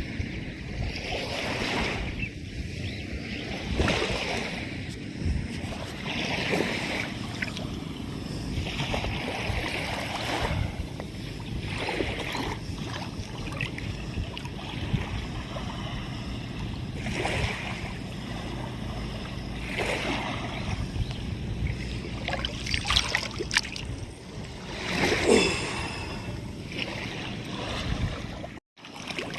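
Water sloshing and splashing in uneven swells, with wind on the microphone. The sound cuts out for an instant near the end.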